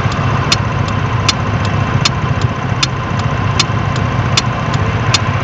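Single-cylinder scooter engine idling while the scooter stands still, heard from the rear of the scooter. Over it comes a sharp, regular tick about every three quarters of a second.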